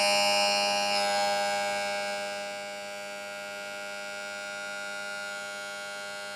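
Honda outboard power trim-and-tilt unit's electric motor and hydraulic pump running, a steady high whine, driving the ram up while the filler cap is left cracked to bleed air from the oil. It is louder for about the first second, then settles to a quieter, even whine.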